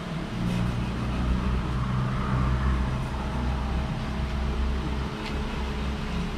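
A motor running steadily with a low hum, and a light click about five seconds in.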